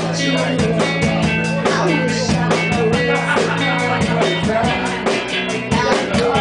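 Live band playing a pop-rock song: a woman singing into a microphone over electric guitar and drums, with a steady beat.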